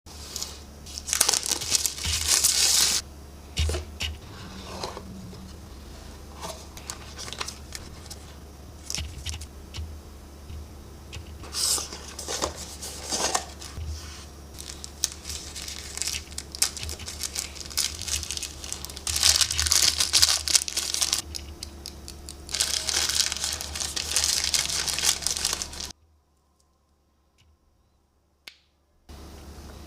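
Packaging of a wireless microphone kit being unboxed by hand: irregular crinkling, rustling and tearing of wrapping, with small clicks and knocks of parts being handled. It falls silent for about three seconds near the end.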